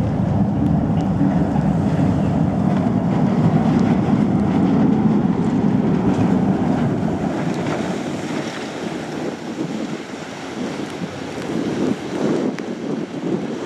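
Tamar-class lifeboat launching down its slipway: a loud, steady low rumble that eases about seven seconds in as the boat reaches the sea, then the rush of water as it powers away. There is wind on the microphone throughout.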